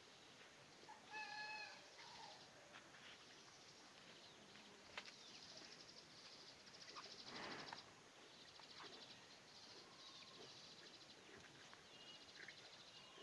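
Faint farmyard sounds: a short, high animal call about a second in and a breathy rush around seven seconds in, over faint rapid high chirping.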